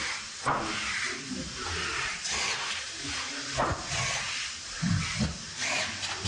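Cordless drill running in short spells, driving screws into a steel sofa frame, with a couple of sharp knocks from handling the frame and screws.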